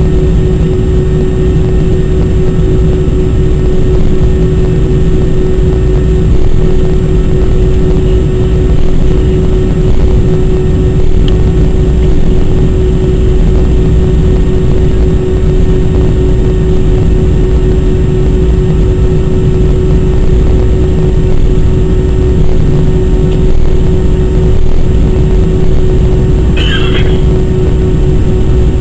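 Airbus A319-100's jet engines heard from inside the passenger cabin during takeoff: a loud, steady rumble with a constant hum and fainter steady tones above it. A brief high squeak comes near the end.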